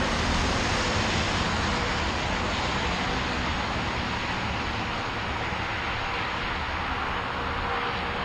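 A steady rushing hiss with a faint steady hum underneath, from fuel being pumped through a gas-station dispenser nozzle into the minibus's tank.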